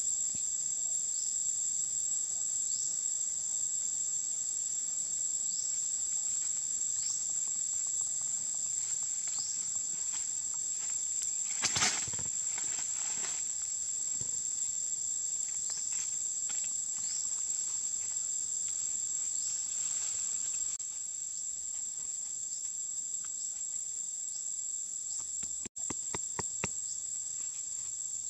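Steady high-pitched insect drone with short rising chirps every second or two. A sharp click comes about halfway through, and a quick run of sharp clicks comes near the end.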